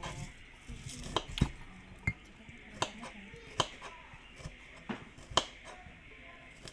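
Small knife peeling shallots by hand: a handful of sharp clicks and snaps at irregular intervals as the blade cuts and lifts the papery skins.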